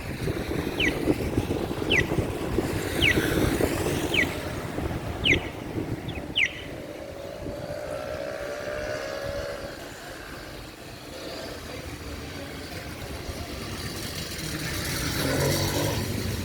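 City street traffic noise, with a short high chirp falling in pitch repeating evenly about once a second for the first six seconds, then a vehicle growing louder near the end.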